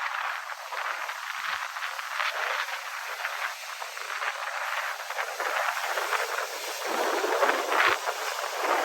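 Wind and ocean surf: a rushing hiss that swells and falls, loudest near the end.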